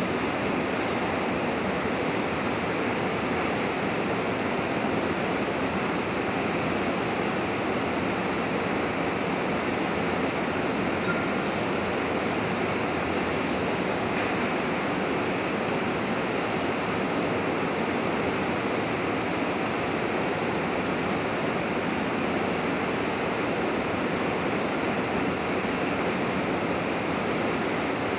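Steady, unchanging rushing of air, the noise of the fire lab's calorimeter exhaust hood running.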